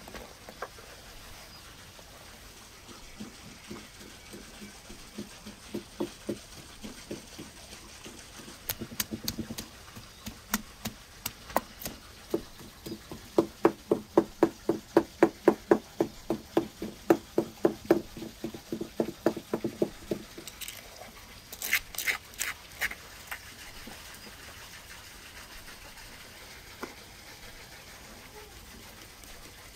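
Wooden pestle pounding garlic in a wooden mortar: slow, irregular knocks at first, settling into a steady pounding of about three strokes a second before stopping. A few sharp clicks follow soon after.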